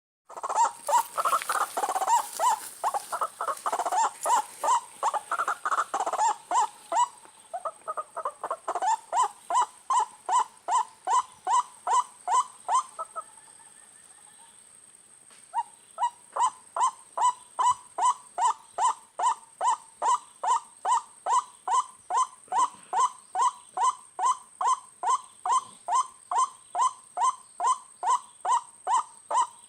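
White-breasted waterhen (ruak-ruak) calls: a monotonous 'kru-ak' repeated about twice a second, with several voices overlapping at first. The calls break off for about two seconds midway, then resume steadily over a faint, steady high whine.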